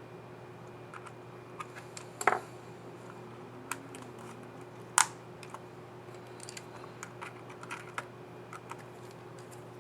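Small plastic clicks of a laptop keycap and its scissor mechanism being fitted and pressed on an HP Envy x360 15 keyboard, with two louder clicks about two and five seconds in.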